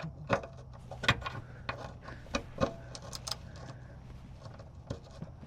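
Scattered metallic clicks and clinks of hand tools on exhaust hardware, about eight irregular taps, over a faint low hum.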